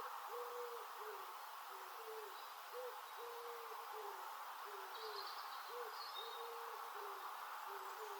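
Common wood pigeon cooing its soft phrase over and over, about once every three seconds, each phrase with one longer stressed note. A small bird chirps faintly about five seconds in.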